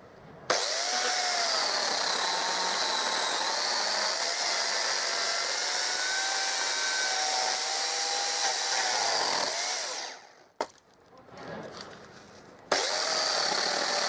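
Chainsaw switched on and running as it cuts branches, its pitch dipping and wandering under the load. It stops after about nine seconds, a single click sounds in the short lull, and it starts again abruptly near the end.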